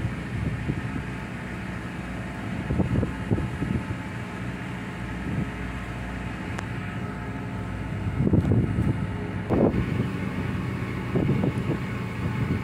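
Steady drone of a fishing vessel's engine, with wind buffeting the microphone in gusts, strongest a little past the middle.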